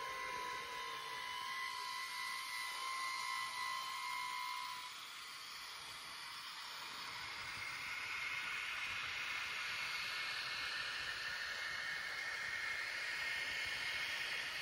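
Tiny electric motors of Märklin mini-club Z scale locomotives running on the track, giving a thin whir and hiss. A steady high whine fades out about five seconds in, and a broader high whir builds again a few seconds later.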